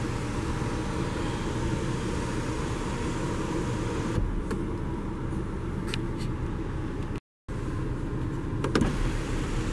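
Electric motor of a Volvo XC60's panoramic sunroof running steadily as the roof slides open, stopping about four seconds in. A steady low hum continues, with a few light clicks.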